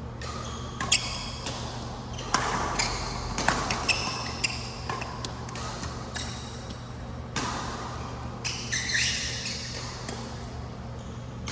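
Badminton singles rally: sharp racket hits on the shuttlecock and high squeaks of shoes on the court floor, over a steady low hum.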